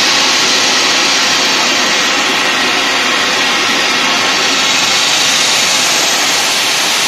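Water mist gun spraying a high-pressure jet of water mist: a loud, steady hissing rush.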